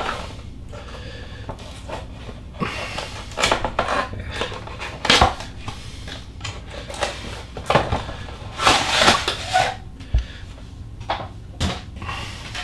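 A cardboard toy box being opened by hand: the end flap pulled open and the inner cardboard tray slid out, with rustling and scraping and a few sharp knocks as the packaging is handled and set down.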